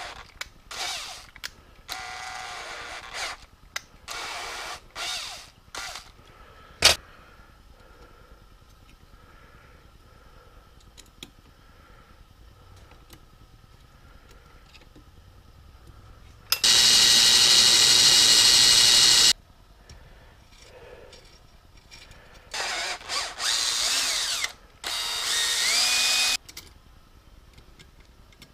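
Cordless drill boring small holes in a metal part, running in short bursts, then one steady run of about three seconds midway, then more short bursts near the end with the motor pitch sliding as it speeds and slows. A single sharp click comes about seven seconds in.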